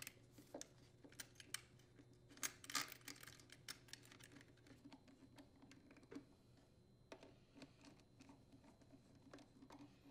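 Faint, irregular clicks and small taps of a Torx screwdriver turning bolts and of hands handling the plastic air filter housing, with a few louder taps about two and a half to three seconds in.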